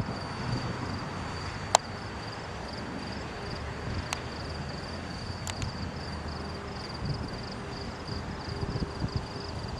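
Insects trilling in a high, steady pulsing tone over a low outdoor rumble, with three sharp clicks along the way.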